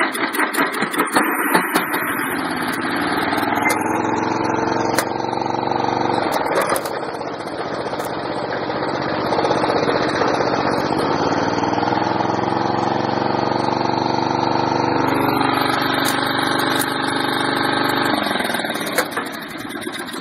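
Riding lawn mower engine running while towing another riding mower on a chain, its pitch dipping and rising again partway through as the speed changes. The engine dies away near the end as it is shut off.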